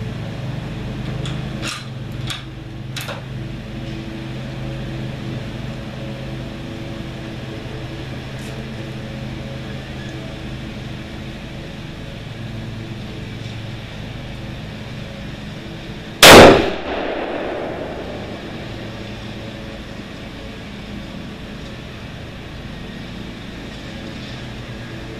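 A few light metallic clicks as the rifle is readied, then about sixteen seconds in a single loud shot from a scoped rifle fired off a bench rest, with a ringing tail of about a second and a half. A steady low hum runs underneath.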